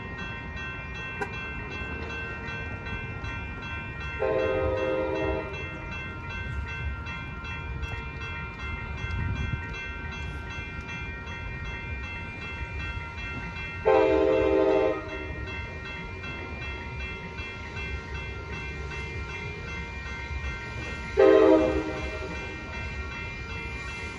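Railroad crossing bells ringing steadily at an activated grade crossing. An approaching Amtrak Capitol Corridor train sounds its horn three times, about a second each, each blast louder than the last as it nears.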